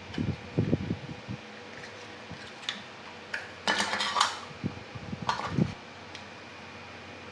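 Small hard parts being handled on a work surface: a series of light knocks and clicks, with a short scraping rustle about four seconds in.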